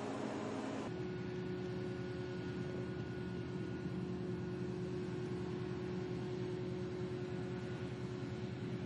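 Heavy multi-axle transporter carrying a Delta IV booster stage, its engine running with a steady low drone and an even hum. The sound shifts abruptly about a second in to a similar steady engine drone with a clear hum tone.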